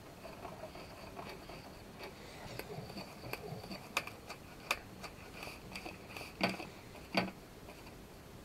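Scattered light clicks and taps of small hard plastic parts being handled as new DDR4 laptop RAM modules are picked up, with a few sharper clicks in the second half.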